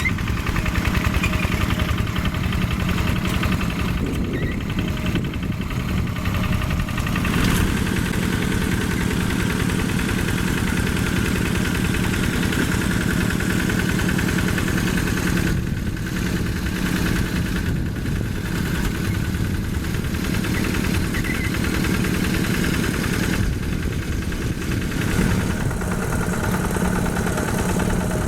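Single-cylinder Yanmar diesel engine of a Quick G1000 hand tractor running steadily with a rapid, even chugging beat; its tone shifts slightly a few times.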